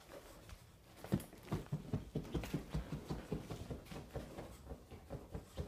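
Black Labrador digging at couch cushions and a blanket to bury a bone: a run of soft, irregular scratches and rustles, starting about a second in.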